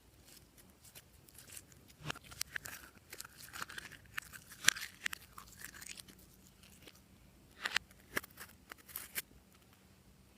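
Glossy slime being pressed and kneaded by hand, giving runs of sticky clicks and crackly pops, in two bursts with a pause between.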